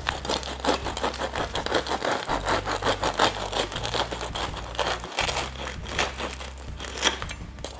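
Knife sawing through the very crisp crust of a freshly baked, still-warm pot-baked loaf: a dense run of crunching crackles with each stroke.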